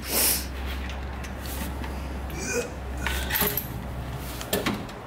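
A few sharp metallic clinks of hand tools and hardware, about four in all, some with a faint ring, over a low steady hum that stops about three seconds in.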